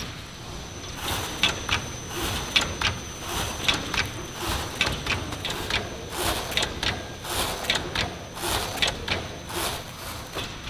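Plastic bag-making machinery running, with irregular sharp clicks and crackles of plastic film several times a second over a steady thin high whine.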